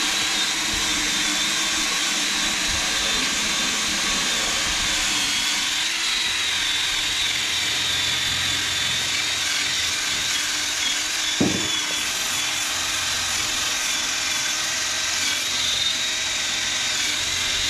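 Cordless drill spinning a wire brush against the rusty steel deck of a rotary cutter, scouring off rust and paint: a steady abrasive hiss with a thin, high motor whine.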